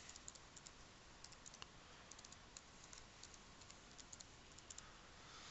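Faint typing on a computer keyboard: soft, irregular keystroke clicks, some in quick runs.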